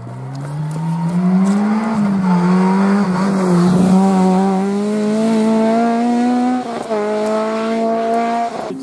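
Rally car engine approaching at speed, its note climbing steeply for about two seconds and then holding high under load, with a brief dip about two-thirds through and a step up in pitch near the end.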